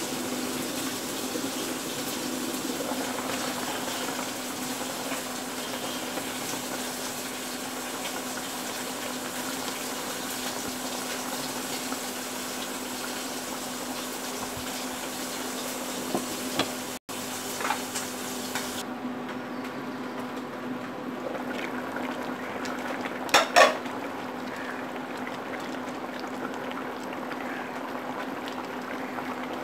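Curry bubbling and simmering in a pan over a steady low hum. A spatula scrapes and clicks against the pan now and then, with two sharp knocks about two-thirds of the way through.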